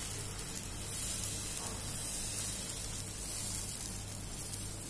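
Potato-and-egg pancake batter sizzling with a steady hiss on a hot griddle pan as it is spread flat with a spoon.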